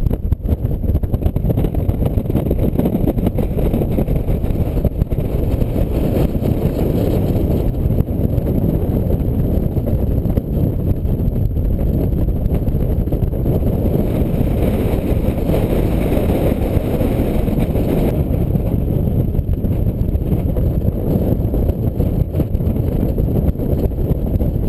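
Strong wind blasting across the camera microphone: a loud, steady, low rush of noise with no break.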